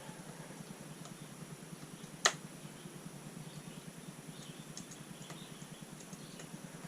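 Faint ticks and light clicks of small hand tools and parts being worked on an RC truck's front suspension, with one sharp click about two seconds in, over a low steady hum.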